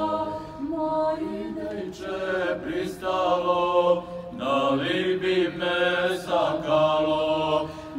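Mixed youth choir singing a folk song in several voice parts, holding long steady notes with short breaks between phrases.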